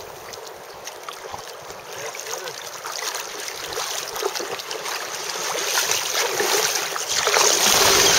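River water rushing and lapping, growing louder near the end as the water comes close to the microphone.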